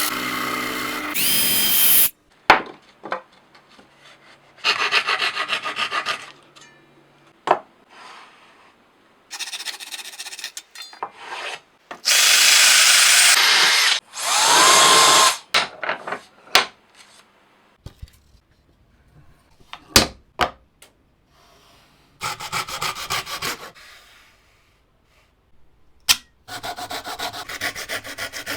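A string of short woodworking tool sounds on wood: bursts of a power tool running, one of which spins down with a falling whine near the middle, stretches of rasping or sanding strokes, and several sharp knocks.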